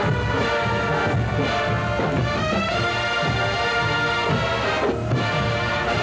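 Marching band brass playing a jazz number, with the trumpet section carrying the melody over a steady beat. The trumpets rise in a glide about two seconds in.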